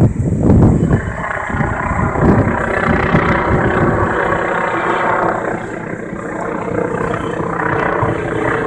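T129 ATAK attack helicopter flying by: low pulsing rotor beats in the first second, giving way to a steady, many-toned turbine and rotor whine.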